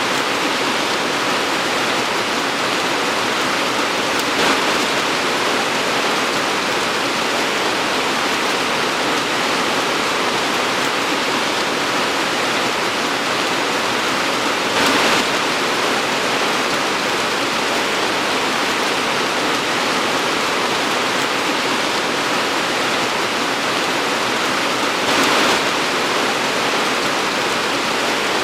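Torrential rain pouring steadily as a dense, even hiss, with three brief louder swells spaced about ten seconds apart.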